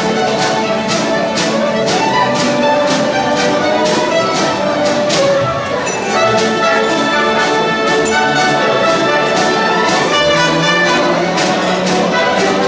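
Youth symphony orchestra playing live: bowed violins and cellos with brass, over a steady beat.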